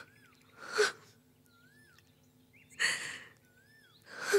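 A woman weeping, drawing a few sharp sobbing breaths about a second or two apart.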